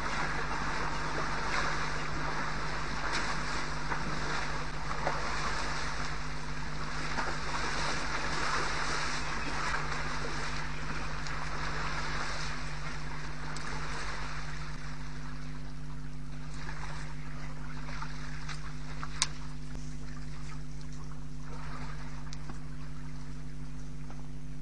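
Elephants wading in a shallow waterhole, the water sloshing and splashing around their legs, easing off about halfway through. A steady electrical hum from the webcam's microphone runs underneath, with one sharp click near the end.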